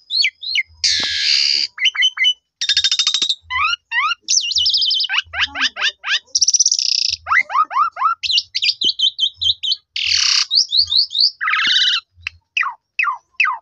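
Asian pied starling singing a long, varied song: quick phrases of whistled up- and down-sweeps, harsh buzzy rasps and rapid chattering notes, with only brief pauses between them.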